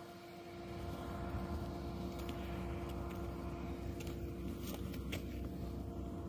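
Steady machine hum, several constant tones with a low rumble underneath that swells about half a second in, and a few faint clicks near the middle.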